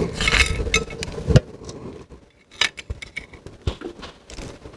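Sharp clicks and light taps of plastic wiring connectors and cables being handled. There are several in the first second, a louder knock a little later, then a few single clicks with quiet gaps between them.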